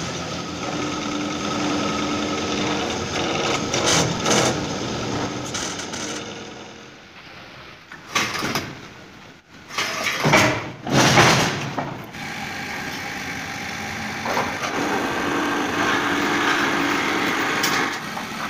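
Workshop machinery running with a steady mechanical hum. It drops away briefly about seven seconds in, and then come a few loud metal clanks.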